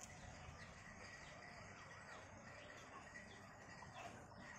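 Near silence: a faint outdoor background with a thin steady high tone and a few soft, faint chirps in the middle.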